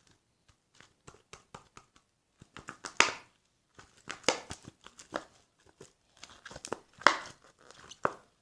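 Hands kneading freshly activated glue slime, with irregular sticky squishing, popping and crackling noises; the loudest pops come about three, four and seven seconds in.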